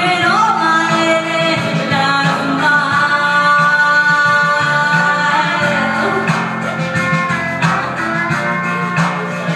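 A woman singing into a handheld microphone over a backing track with guitar, holding long notes that slide in pitch.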